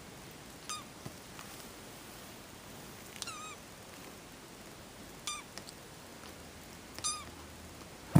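Kitten mewing four times, short high-pitched mews about two seconds apart, the second one a little longer and wavering.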